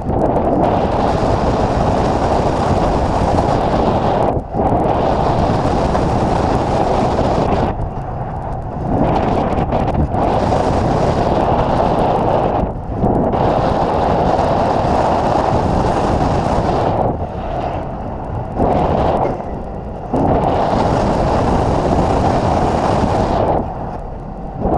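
Wind buffeting a camera mounted outside a moving bookmobile, with a rumble of road and engine noise underneath. The noise drops briefly several times, then comes back.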